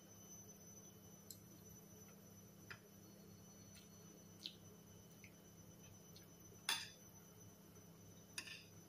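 Spoon and fork clicking against a plate while eating: a few light taps spread out, the loudest about two-thirds of the way through and another near the end, over faint room hum.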